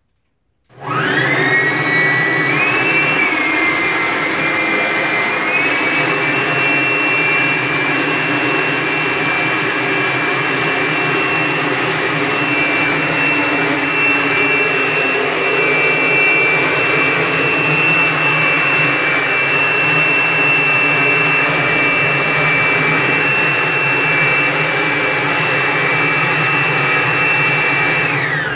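Corded electric leaf blower blowing air through a hose into DIY air sled feet. It spins up with a rising whine just under a second in. It steps up in pitch within the first six seconds as it goes from the low to the high setting, runs at a steady high whine, and winds down in pitch as it is switched off at the very end.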